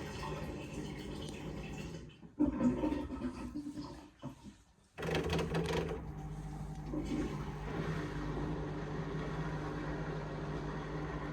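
Indesit IMA862 washing machine starting an intermediate spin: water draining and sloshing in the drum over a steady low motor and pump hum. The sound drops out briefly twice in the first five seconds, then settles into a steady hum.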